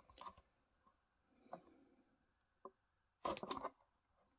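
Clear plastic blister pack of a carded diecast toy being handled and opened: a few faint ticks, then a short burst of plastic crackling about three seconds in.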